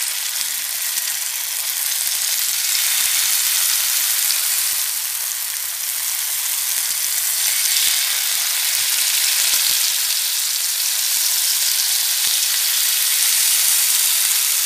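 Marinated beef slices sizzling in hot sunflower oil on a heavy dosa griddle: a steady frying hiss that goes on as more pieces are laid in.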